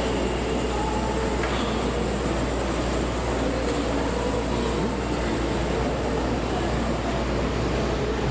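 Steady room noise of a large hall: a constant low hum and hiss, with a faint, indistinct murmur of voices.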